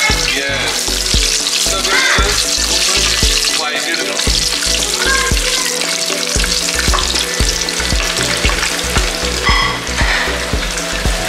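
Whole spices (cloves, cinnamon, cardamom and black pepper) sizzling in hot oil in a pan as they are sautéed and stirred, a steady frying hiss with short knocks throughout.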